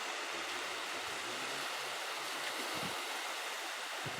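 Ocean surf washing onto a beach, a steady rushing noise of waves.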